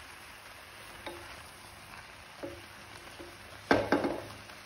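Spatula stirring mushrooms and peas in tomato masala in a kadhai, with a soft steady sizzle and a few light scrapes. A louder clatter of spatula against the pan comes a little under four seconds in.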